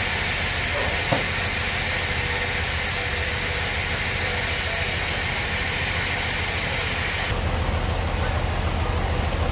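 Band sawmill running: a loud steady hiss over an engine's low, even throb. About seven seconds in the hiss drops away abruptly, leaving the engine running. There is a single short click about a second in.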